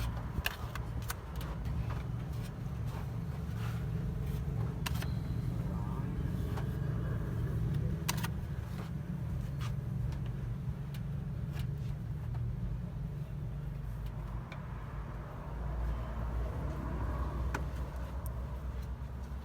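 A low, steady hum of a running motor or engine, with scattered clicks and knocks over it.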